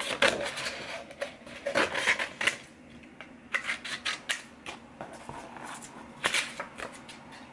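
Scissors snipping through printed paper, in several short runs of quick cuts with pauses between them.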